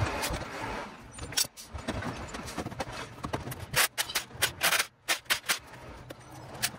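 Metal hand tools clicking and clinking against a Nissan VQ37VHR engine on an engine stand during teardown: a string of sharp, irregular metallic clicks, coming thickest from about four to six seconds in.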